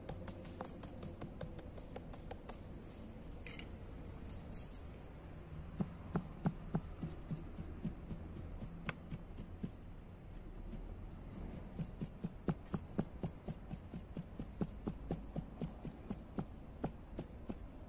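Wooden stick jabbed again and again into a flattened round of bread dough, docking it with holes before baking: two runs of soft, dull taps, about three a second.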